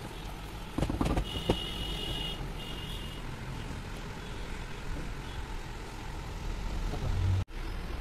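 Steady low rumble of road traffic, with a high beeping tone sounding twice about a second in. A few light knocks come before it, and the sound cuts out for an instant near the end.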